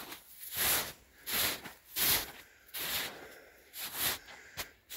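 Footsteps of a person walking over the snowy, pine-needle-strewn forest floor. Each step is a short hissing crunch, about every two-thirds of a second.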